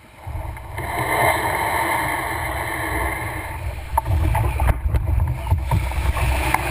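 Choppy surf washing around a loaded canoe as it is pushed off a sandy beach, with wind buffeting the microphone in a steady low rumble. A few sharp knocks come in the second half.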